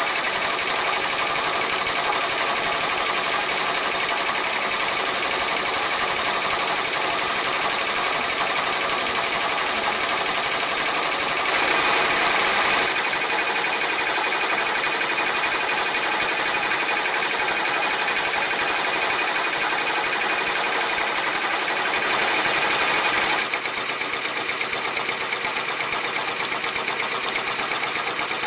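Brother PR1000e ten-needle embroidery machine stitching at speed: a steady, rapid, even patter of needle strokes.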